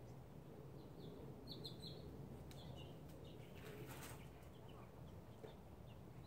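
Faint bird chirps: a quick cluster of short high chirps about a second and a half in, then a few scattered ones through the middle, with a couple of faint clicks from handling, over a quiet steady background.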